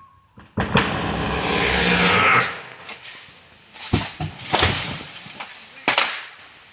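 A big limb of a sengon (albizia) tree falling and crashing down through coconut palms: a sudden crack about half a second in, then a loud rushing crash of breaking wood and leaves lasting nearly two seconds. Three more sharp cracks follow as the debris settles.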